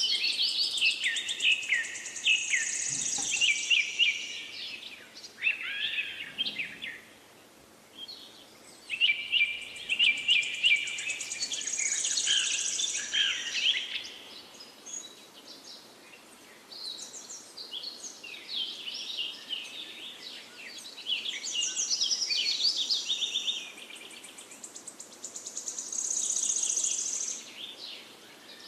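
Songbirds singing: phrases of rapid chirps and trills a few seconds long, separated by short pauses.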